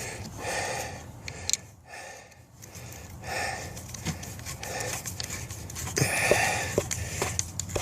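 A person breathing hard, about one breath a second, with a few sharp clicks near the end.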